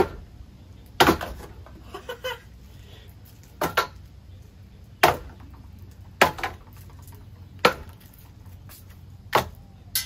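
A wooden stick or branch whacking the blades of a running Harbor Breeze Pulsar/Slimline ceiling fan. There are about seven sharp hits, roughly one every second and a half, with a couple of fainter knocks between them.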